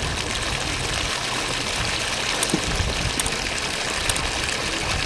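Borehole water gushing from the open end of a pipe and splashing into a muddy puddle in a steady rush.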